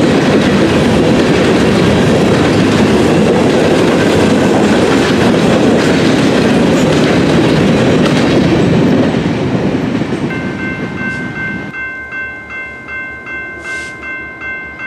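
Freight train of covered hopper cars rolling past a grade crossing, a steady rumble with the clickety-clack of the wheels, fading after about nine seconds as the last car goes by. Then the grade-crossing bell keeps ringing, about two dings a second.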